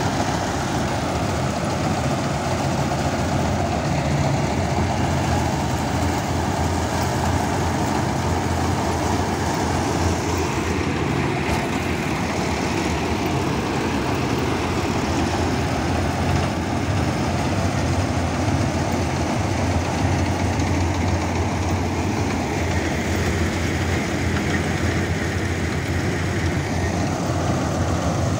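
Dasmesh 912 combine harvester on a John Deere 5075E 75 hp tractor, its diesel engine and threshing machinery running steadily under working load. It is a continuous, even hum that does not change in pitch.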